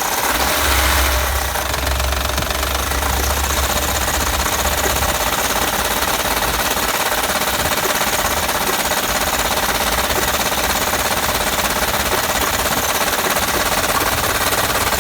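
Honda Pilot's 3.5-litre V6 running with a loud, rapid, steady knocking, a heavy engine knock severe enough that the owner is surprised it still runs.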